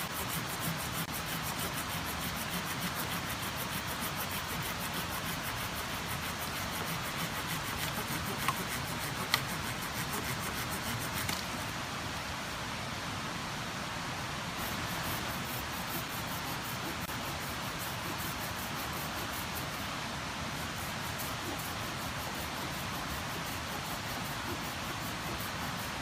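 Steady rush of a mountain stream, with two sharp snaps a little over eight and nine seconds in as dry branches are handled and broken.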